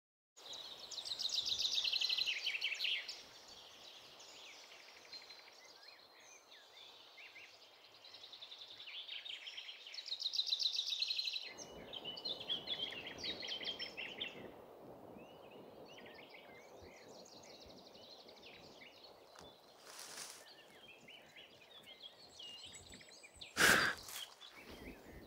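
Outdoor countryside ambience fading in from silence: birds chirping and trilling in quick clusters over a low background hiss, with one short, loud rustling burst near the end.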